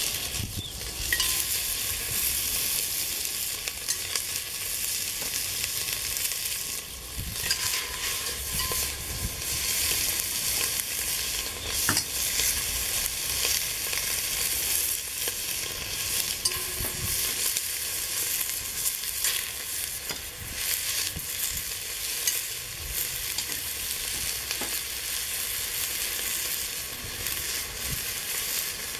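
Pieces of mutton frying in a hot, fat-greased cast-iron potjie pot, a steady sizzle with crackling and spitting as the meat browns. A few short knocks come through now and then.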